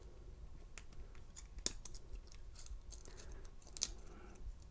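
Faint, irregular small metallic clicks and scrapes of a lock pick working the pins of a Commando steel laminated padlock, the plug held in a false set by tension; two sharper clicks come about a second and a half in and near the end.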